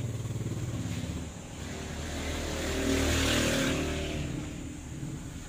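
A motor vehicle passing by: its engine and road noise swell to a peak about three seconds in, then fade away.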